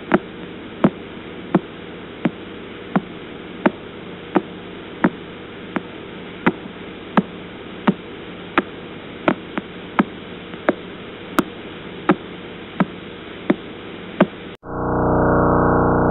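Pulsar radio signal converted to sound: sharp regular clicks, about three every two seconds, over a steady hiss and hum. Near the end it cuts abruptly to a second pulsar recording, a loud steady pitched drone.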